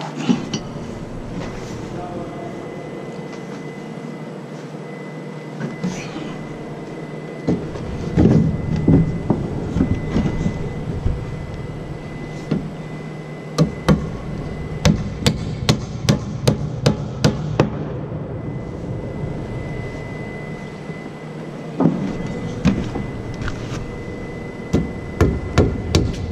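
Hammer driving nails into wooden formwork boards: a few single knocks at first, then runs of quick blows, about three a second, in the second half.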